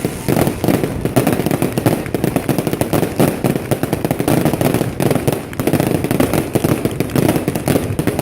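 Large wood bonfire burning with dense, continuous crackling and popping.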